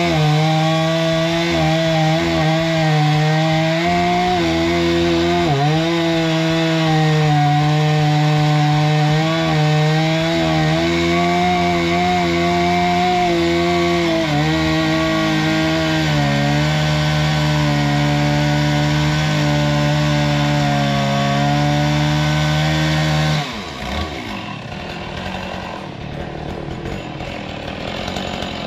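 Stihl MS460 Magnum two-stroke chainsaw with a 27-inch bar running at full throttle as it cuts through a log, its pitch dipping briefly several times as the chain takes load. About 23 seconds in the revs fall away and the sound drops much quieter.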